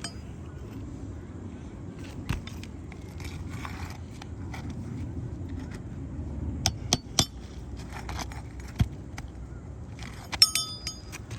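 Scattered sharp clicks and scrapes of hand tools working asphalt roof shingles loose, with a quick cluster of ringing metal clinks near the end. A steady low rumble runs underneath.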